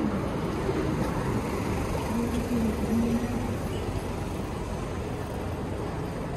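City street ambience: a steady hum of road traffic and general street noise, with a short low steady tone about two seconds in.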